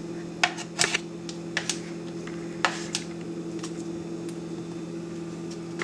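Kitchen tongs tossing shredded cabbage, carrot and radish in a glass bowl: a scattering of light clicks and taps, most in the first three seconds, over a steady low hum.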